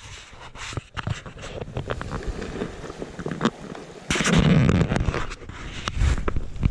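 Camera handling noise: fingers rub and tap on the action camera's housing, making scrapes and clicks, with a louder rustling knock about four seconds in as the camera is moved.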